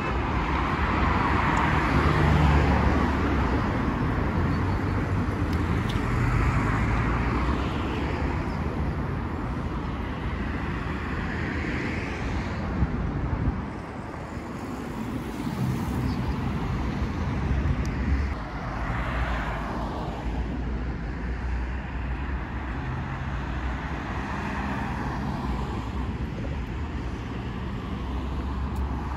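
Road traffic: a steady low rumble with vehicles passing one after another, each swelling and then fading away.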